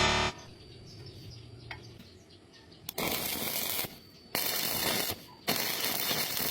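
Stick welding arc crackling in three bursts of about a second each, the arc struck and broken again and again, as in stitch-welding a wide gap in thin metal.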